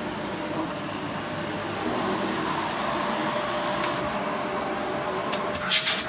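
Cylinder vacuum cleaner running steadily, its floor head being worked over carpet. Near the end comes a brief, loud whoosh of air.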